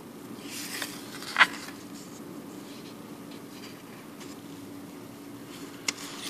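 A Papua New Guinea 10-kina polymer banknote being handled and flipped over, with light rustling and a sharp snap about a second and a half in, a softer one near the end. A steady low hum runs underneath.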